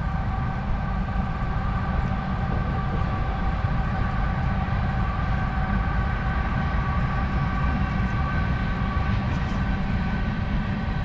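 A train passing on nearby tracks: a steady low rumble with a few steady high tones over it, keeping up without a break.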